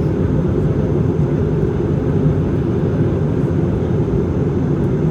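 Steady low rumble and air hiss inside the cabin of an Airbus A220-300 airliner, from its engines and airflow.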